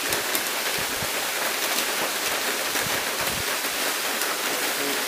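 Steady hiss of water with a few faint ticks in it.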